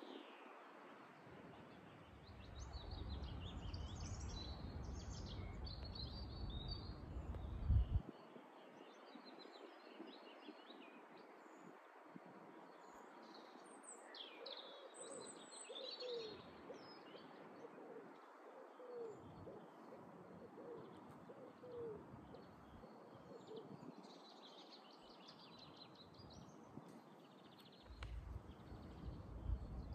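Birds singing and chirping, with a low cooing call repeated about once a second through the middle. A low rumble sits under it for a few seconds near the start and again near the end.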